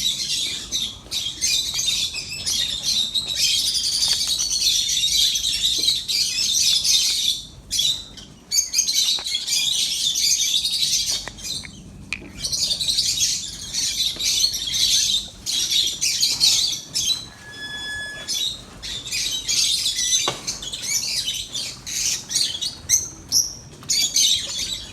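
A flock of lovebirds chattering and squawking: a dense, shrill, continuous chorus with a few brief lulls, and one clear pitched call about eighteen seconds in.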